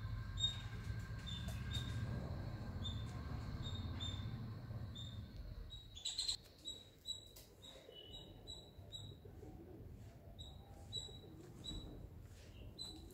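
A small animal calling in the garden trees with short, high chirps repeated about twice a second, with a louder burst of chirping about six seconds in. A low rumble runs under the first five seconds.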